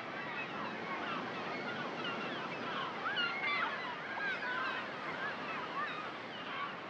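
Beach ambience: surf washing in as a steady rush, with many short, overlapping bird calls above it.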